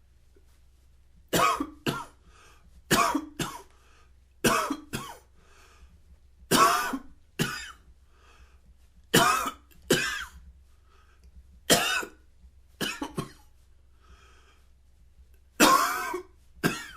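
A man coughing over and over in short fits of one to three coughs, each fit a few seconds apart.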